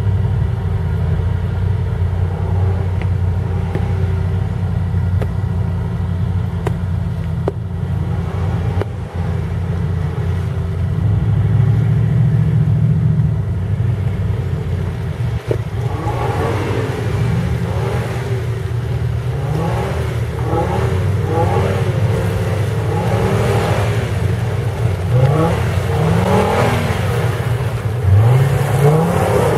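Hummer H3's 3.7-litre inline-five through a Magnaflow performance exhaust, pulling through deep mud: a steady drone at first, then revved up again and again in the second half, each rev rising in pitch, with the tyres churning the mud as it comes close.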